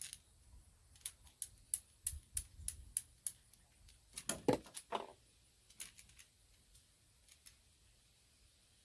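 Irregular light clicks and taps of small hard parts being handled, with a louder knock about four and a half seconds in and a softer one just after, then only a few faint ticks.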